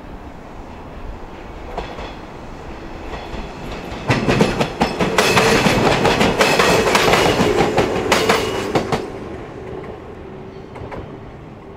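Jōshin Electric Railway 700 series electric train (ex-JR East 107 series, MT54 traction motors) passing close by. Its sound builds, is loud for about five seconds with wheels clattering over rail joints and a steady motor hum, then fades away.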